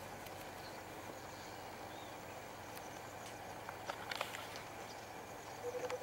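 Outdoor ambience: a steady soft background hiss with a few faint, distant bird chirps. A quick cluster of sharp clicks comes about two-thirds of the way in, and a rapidly pulsing low tone starts just before the end.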